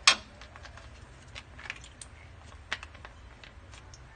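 Metal spoon clinking and scraping against a steel pan while stirring thick cream sauce: one sharp clink at the start, then scattered light taps.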